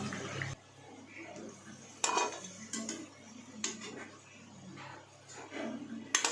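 Kitchen utensils knocking and clinking against dishes, a few sharp separate knocks about two seconds in, again around three and a half seconds, and a louder one near the end.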